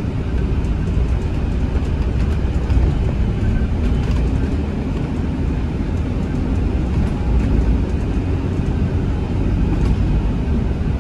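Steady low rumble of a bus's engine and tyres heard from inside the passenger cabin while it drives along.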